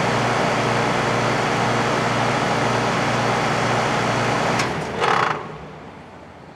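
Rheem 4-ton central air conditioner condensing unit running steadily with its Copeland scroll compressor and condenser fan. About four and a half seconds in it shuts off with a short, loud noise: the shutdown sound of the scroll being spun backwards for a moment by the system pressure. After that only the coasting condenser fan is faintly heard.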